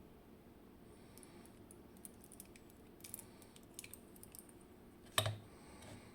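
Small metal clicks and taps from the parts and tools of a Vachette V DIS+ dimple lock being taken apart, with a louder clack a little after five seconds in.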